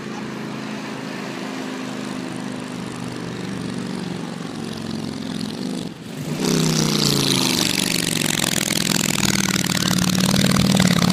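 Harley-Davidson motorcycle's V-twin engine approaching and growing louder. About six seconds in there is a brief break, after which the bike is close, its pitch falling as it slows. It then runs loudly at low revs right beside the microphone.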